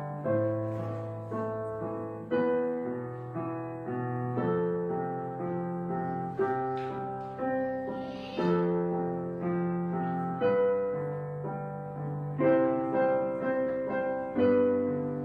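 Background piano music: slow chords and notes struck about once a second, each ringing and dying away before the next.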